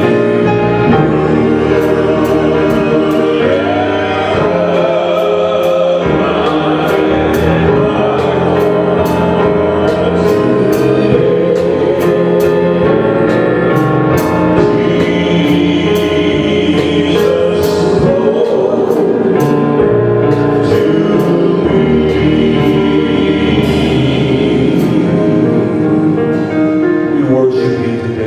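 Gospel song with a group of voices singing over instrumental backing and a steady percussive beat, ending right at the close.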